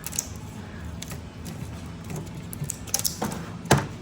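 Scattered light clicks and knocks of metal tools and engine parts being handled, with the loudest knock near the end.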